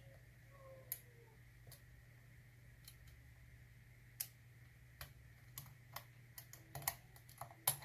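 Faint, sharp metallic clicks and ticks of a lock pick and tension bar working the pins inside a UAP euro cylinder during single pin picking, sparse at first and coming more often in the last few seconds.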